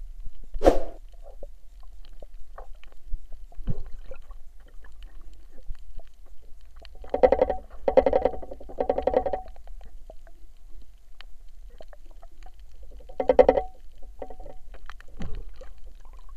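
Underwater sound from a spearfisher's camera: a steady low rumble of moving water, with bursts of bubbling gurgles three times about seven seconds in and once more near thirteen seconds. A sharp click comes near the start.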